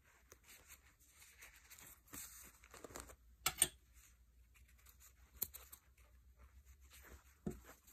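Faint rustling of denim being handled, with sharp snips of small scissors cutting the sewing thread: two close together about three and a half seconds in, another about five and a half seconds in.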